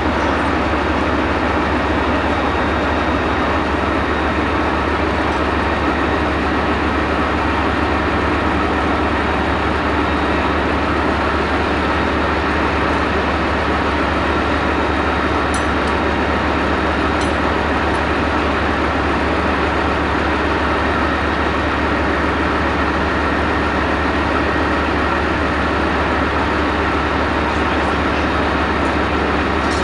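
Bergepanzer 2 armoured recovery vehicle's MTU V10 multi-fuel diesel engine idling steadily, a constant low, heavy drone.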